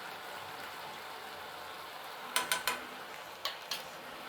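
Onion, capsicum and sauces sizzling steadily in a frying pan. About halfway through come five sharp clinks of a utensil against the pan: three in quick succession, then two more.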